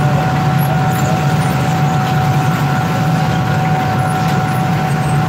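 Industrial flatbread production line running: the conveyor tunnel oven and its machinery give a steady, loud hum with a constant whine over it.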